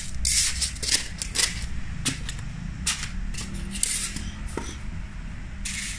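Foam packing strips and cardboard scraping and rubbing as they are pushed into place inside a corrugated cardboard box. The sound comes as a series of short, uneven scrapes and knocks.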